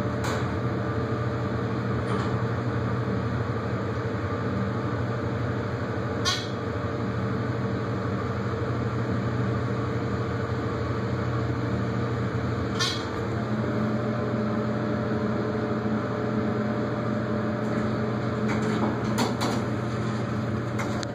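Early-1990s Dover hydraulic elevator riding down to the basement: a steady low hum inside the cab, with single clicks about six and thirteen seconds in. The hum's pitch shifts lower about two-thirds through, and several clicks come close together near the end as the car reaches the landing.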